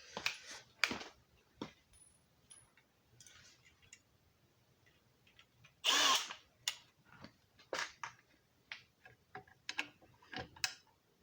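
Scattered clicks and knocks of screws and a fire alarm pull station being handled, with one short power-drill burst about six seconds in, driving a screw.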